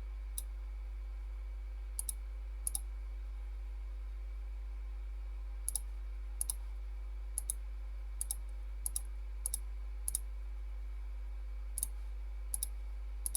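Computer mouse buttons clicking, about a dozen times at irregular intervals, mostly in quick pairs like double-clicks. A steady low electrical hum runs underneath.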